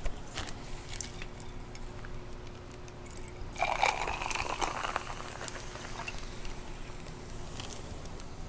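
Close-miked eating of chicken Alfredo: chewing with small mouth clicks and smacks, and a louder, noisier stretch lasting about a second and a half from about three and a half seconds in.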